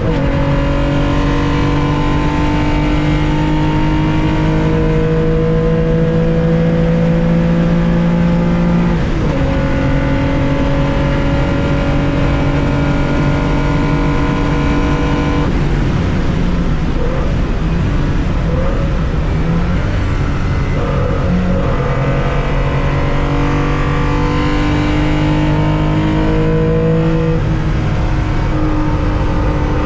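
Air-cooled flat-six of a 1965 Porsche 911 2.0 heard onboard under racing load, pulling at high revs with one upshift about nine seconds in. About halfway through the steady note cuts off and breaks into short uneven revs as the driver lifts and downshifts. It then climbs steadily again under acceleration.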